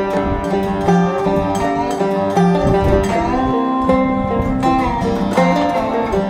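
Background music with plucked string instruments, in a bluegrass or country style, with an even beat.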